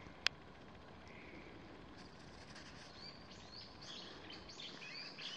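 Steady faint background noise with one sharp click just after the start, then a bird chirping in a run of short, quick notes sliding in pitch from about three seconds in.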